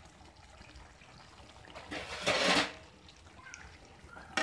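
A pan of chicken curry simmering, with a louder rush of noise about two seconds in. A metal lid clanks down onto the pan at the very end.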